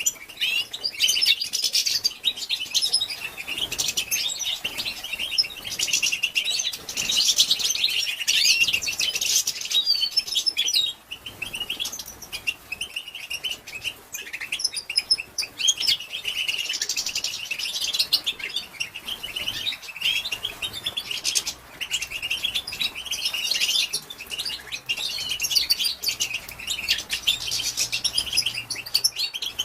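Female European goldfinch twittering: a fast, continuous run of high chirps and trills with a few brief pauses. This is the female's call that excites male goldfinches into singing.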